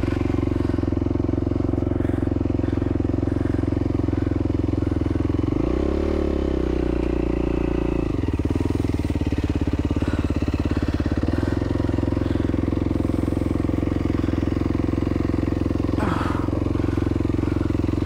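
Yamaha WR450F's single-cylinder four-stroke engine running at steady revs as the dirt bike is ridden, with a brief rise in revs about six seconds in that holds for two seconds and then drops back.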